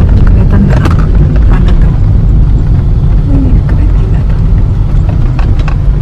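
A car running at low speed, heard from inside the cabin: a steady, loud low rumble of engine and road noise, with a few light clicks.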